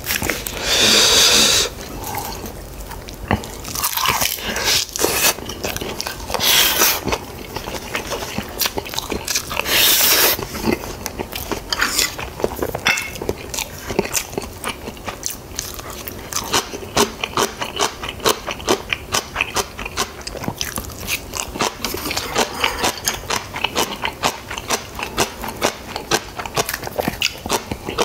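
A person chewing and crunching mouthfuls of Korean food close to the microphone, in quick repeated bites, with a few louder bursts about a second in and again near ten seconds in.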